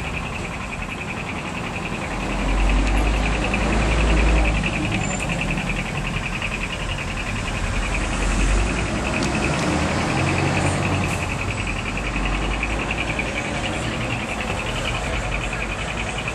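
Ambience aboard a moving tourist road train: a low engine and road rumble that swells about two seconds in and again near the middle, under a steady high, rapidly pulsing buzz.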